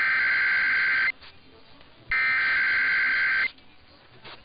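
Emergency Alert System SAME header: bursts of rapidly switching two-tone digital data, each about a second and a half long with a second's pause between. Two full bursts, and a third begins at the very end.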